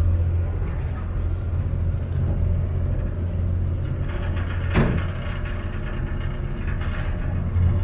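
Vaporetto water bus's engine running with a steady low hum. A single sharp knock comes about halfway through.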